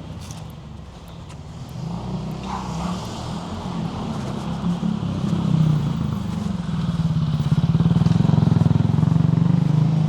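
Engine of a motor vehicle passing close by in street traffic. Its low drone grows louder over the last few seconds.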